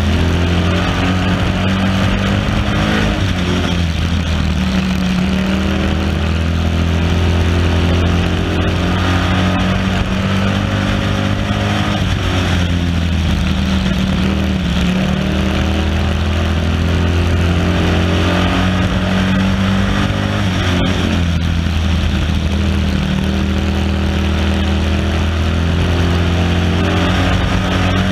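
Stock race car's engine running hard at racing speed, its note sagging and then climbing again about every eight seconds as the car eases into each turn and accelerates out onto the straights, with steady road and wind noise underneath.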